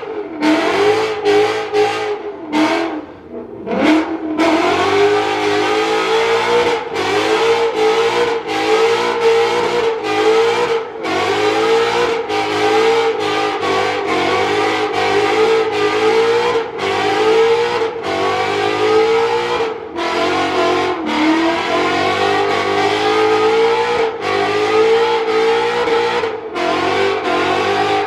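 Ford Mustang engine held at high revs in a burnout, its pitch rising and falling about once a second. It dips briefly about three seconds in, then climbs back.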